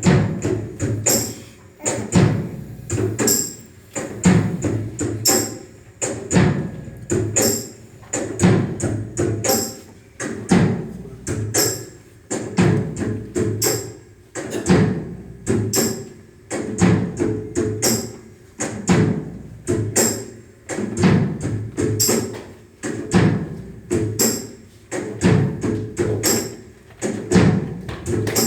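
Background music with a steady percussive beat, its phrase repeating about every two seconds.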